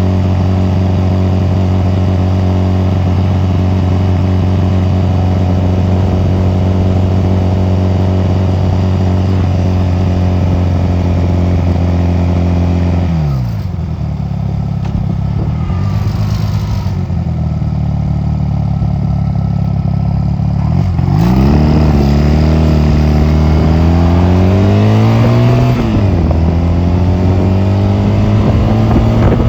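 Honda 250cc motorcycle engine under way. It runs at a steady pitch, then falls off about 13 seconds in as the throttle closes, and stays low for several seconds. From about 21 seconds it revs up again, with a brief dip near 26 seconds before it climbs on.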